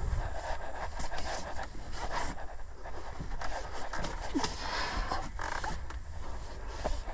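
A climber's heavy breathing close to the microphone, roughly one breath a second, with shoes and rope scraping on the rock during the abseil.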